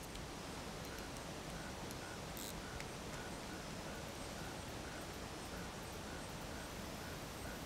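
Faint steady outdoor background hiss, with a soft, high chirp from a small calling animal repeating about twice a second.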